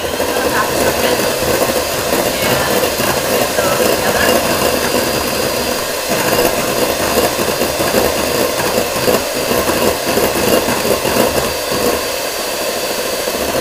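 Electric hand mixer running steadily, its beaters whipping egg whites in a bowl to bring them up to soft peaks; the motor winds down at the very end.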